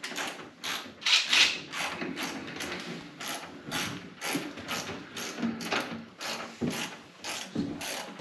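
Ratcheting wrench working bolts loose, its pawl clicking in a steady run of short strokes, two or three a second.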